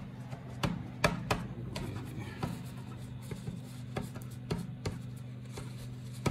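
Paper tissue rubbed and dabbed over the GPU area of a MacBook Pro logic board to clean off flux after reflowing the chip, giving scratchy rubbing with irregular sharp taps. A steady low hum runs beneath.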